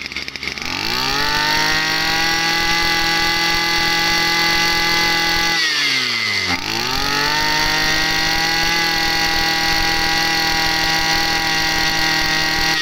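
Iseki CD26 brush cutter's small two-stroke engine revved from idle to full throttle and held there, let back down to idle about six seconds in, then revved up again and held.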